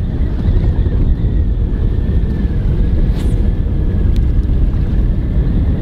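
Wind buffeting the microphone on an open boat, a steady heavy rumble, with a faint steady high whine underneath and a brief high swish about three seconds in.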